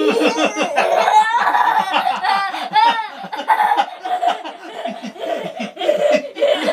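People laughing hard and without a break, in quick repeated bursts of laughter.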